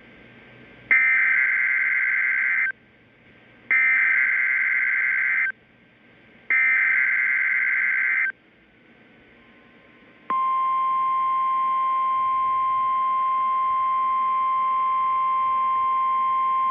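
NOAA Weather Radio Emergency Alert System opening: three short bursts of SAME digital header data, each a harsh warbling screech, then about ten seconds in the steady 1050-hertz weather radio alarm tone, a single held beep. The header carries the coded alert, and the alarm tone signals a new alert and switches on standby weather radio receivers.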